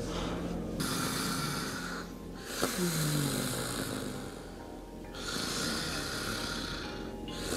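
Snoring: three long snoring breaths of about two seconds each, with short pauses between them, the second opening with a falling tone.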